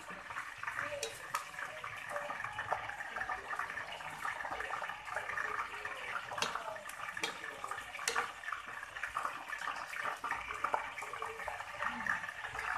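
Wooden spatula stirring chopped meat through coconut milk in a stainless steel pan, the sauce bubbling on the heat, with a steady wet crackle and a few sharper knocks of the spatula against the pan.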